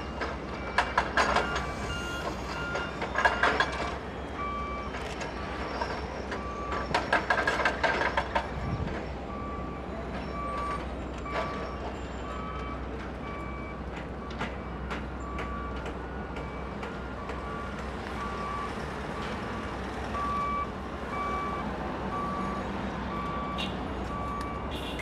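A construction vehicle's reversing alarm beeping steadily, roughly three beeps every two seconds, over a low steady rumble of machinery. There are bursts of clattering about a second in, again at three seconds, and around seven to eight seconds.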